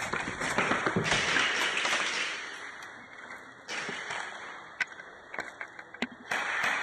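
Airsoft guns firing during indoor close-quarters play: stretches of noise broken by many sharp taps and cracks, the loudest near the start and again near the end.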